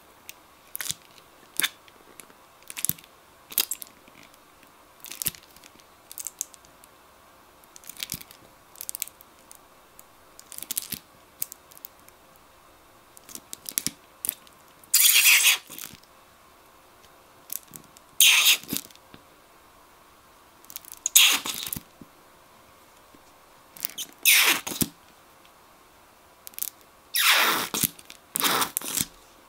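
Plastic squeeze bottle of liquid glue being handled: short clicks and taps about once a second. From about halfway there are longer squirting sounds roughly every three seconds as glue is squeezed out of the nozzle.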